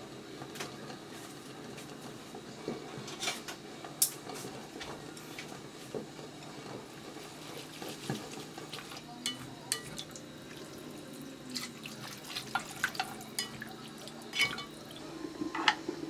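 Kitchen clatter: scattered clinks and taps of dishes and utensils, irregular and more frequent in the second half, over a steady low background.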